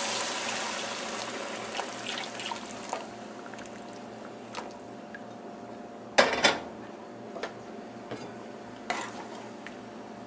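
Heated water poured from a bowl into a pan of frying curry paste, the pour fading out over the first two to three seconds. A few knocks and clinks against the pan follow, the loudest a double knock about six seconds in.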